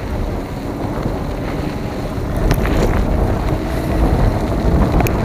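Wind buffeting the microphone of a moving e-bike, with a low steady rumble that grows a little louder about two seconds in, and a few sharp knocks.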